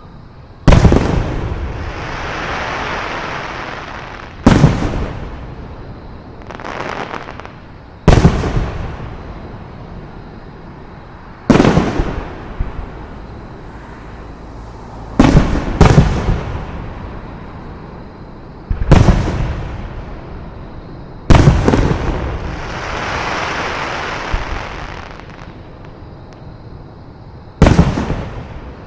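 Aerial fireworks shells bursting, about nine loud booms a few seconds apart. Several are followed by a hiss that lasts a few seconds.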